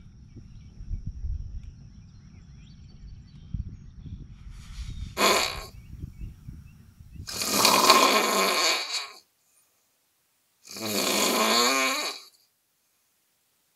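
Loud snoring: a short snort about five seconds in, then two long snores a couple of seconds apart, after a low rumble in the first half.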